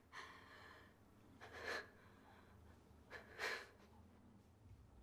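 A woman breathing out heavily twice, about two seconds apart, over quiet room tone.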